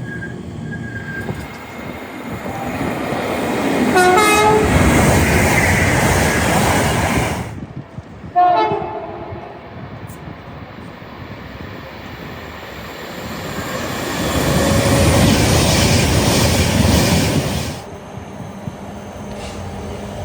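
Trains rushing past at speed. A short horn blast sounds as the first one passes. After an abrupt cut, another horn blast starts suddenly, and then a second train rushes past before cutting off.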